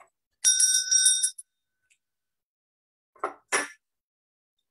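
A small hand bell struck once, ringing with several high tones that stop abruptly after about a second, marking the end of a minute of silence. Two short, sharp sounds follow about three seconds in.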